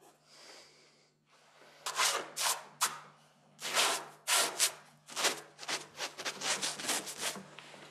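Paintbrush scrubbing paint onto a canvas in short strokes: a few separate strokes at first, then a quicker run of them through the second half.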